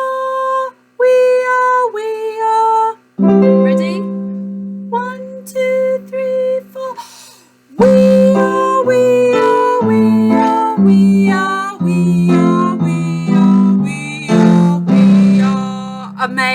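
A woman singing a vocal warm-up exercise on held single syllables, the notes stepping downward, over sustained chords from an accompanying instrument.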